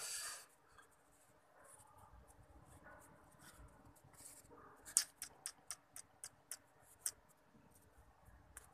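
Faint close handling noise: a brief rustle at the start, then a quick run of about eight sharp clicks, roughly four a second, a little past halfway.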